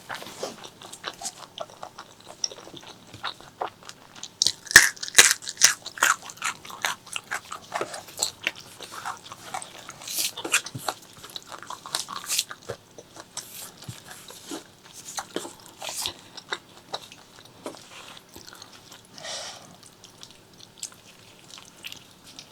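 Close-miked eating of spicy pork leg curry with rice: wet chewing with crisp, crackly bites. The crunching is loudest in a quick run about five seconds in, then carries on in smaller clicks.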